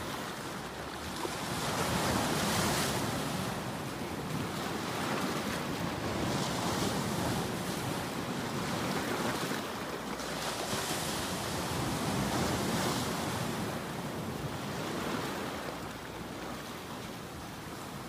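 Ocean surf breaking, a steady hiss that swells and eases in slow surges every few seconds.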